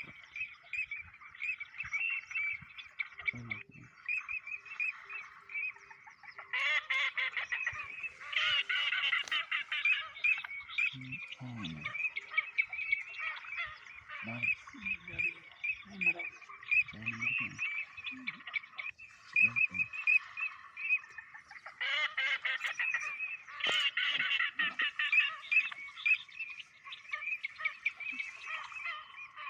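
A dense chorus of rapid, repeated animal calls, many overlapping at once, swelling louder twice.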